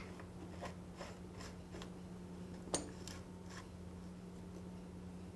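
Faint scattered metallic clicks and taps as the brake stay bolt on a motorcycle's rear brake stay is handled and threaded in by hand, one sharper click a little under three seconds in, over a steady low hum.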